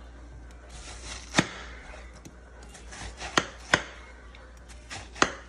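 Kitchen knife slicing down through a peeled watermelon, the blade knocking sharply on the countertop four times, with a few softer cuts between.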